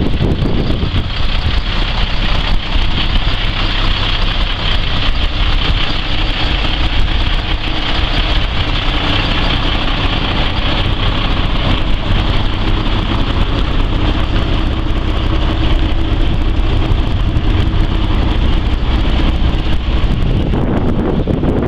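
International 4700 box truck's engine idling steadily.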